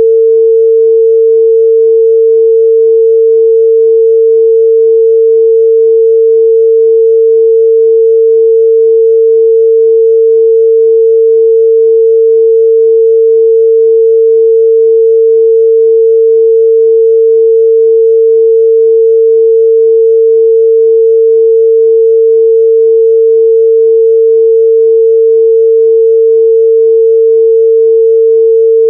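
A steady, loud pure sine-wave test tone at 451 Hz, a single unchanging pitch with no other sound.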